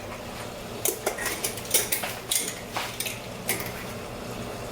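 A run of light clinks and clatters of kitchen utensils and containers, handled while seasoning chicken with herbs, over a steady low hum.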